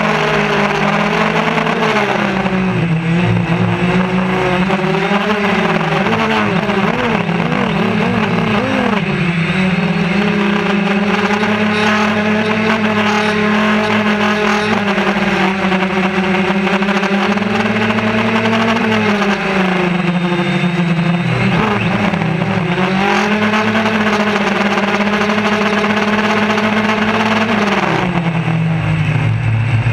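Quadcopter's electric motors and propellers whirring loudly, heard from a camera on the drone's frame, the pitch wavering up and down as the motors speed up and slow down in flight.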